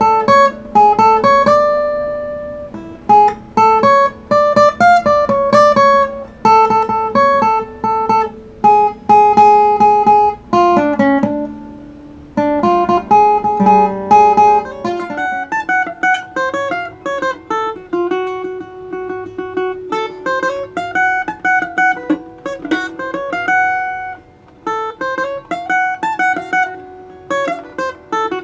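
Solo plucked string instrument picking a single-note melody, improvising in the Ethiopian Anchihoye scale, with quick runs of notes between held, ringing ones.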